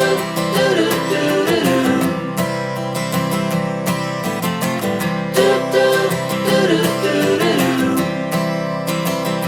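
Background music: a strummed acoustic guitar track in a country style with a steady beat.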